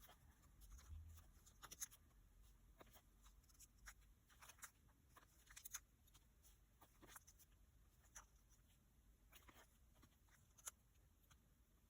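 Faint, scattered taps, clicks and paper rustles of journal-decorating stationery being handled: paper, stickers and a pen on a desk.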